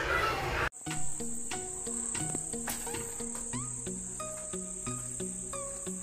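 Background music: a simple melody of short held notes stepping up and down in pitch, over a steady high-pitched tone, cutting in abruptly after a moment of room noise.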